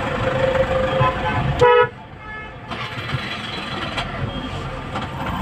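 A vehicle horn gives one short, loud toot about one and a half seconds in, over the steady rumble of traffic in a jam. The background is quieter after the toot.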